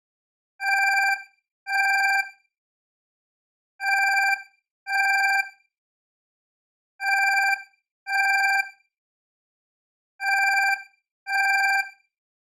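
Alarm clock ringing in a repeating double ring: four pairs of short rings, each ring lasting under a second, the pairs about three seconds apart with silence between them.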